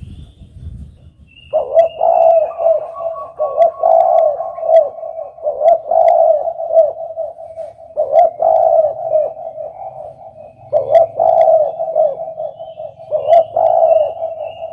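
Spotted dove (derkuku) cooing: a run of low, repeated coo phrases that starts about a second and a half in and goes on with short pauses between phrases.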